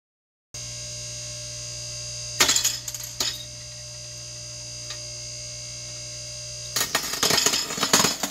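Hydraulic press humming steadily while its ram presses a ceramic kitten figurine. The ceramic breaks with a sharp crack about two seconds in and another a moment later. Near the end it crunches and crackles as the ram crushes the broken pieces.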